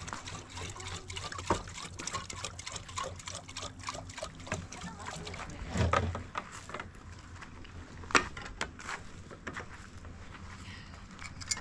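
Water trickling from a plastic jerrycan into a kettle, with small knocks and clatter as the can and kettle are handled. A dull thump comes about six seconds in and a sharp knock about two seconds later.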